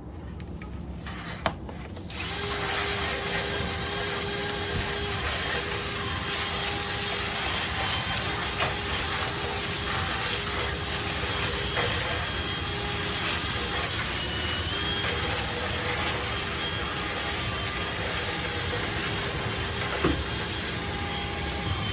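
A motorised dryer-vent cleaning tool switches on about two seconds in and runs steadily, with a faint steady hum over its noise; a sharp click comes just before it starts and a knock near the end.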